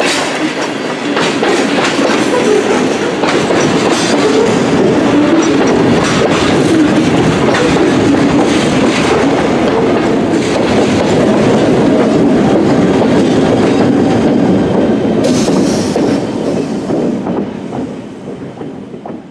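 Freight train of ballast hopper cars rolling past, wheels clicking steadily over the rail joints. The trailing diesel locomotives go by about ten seconds in, and the sound dies away near the end.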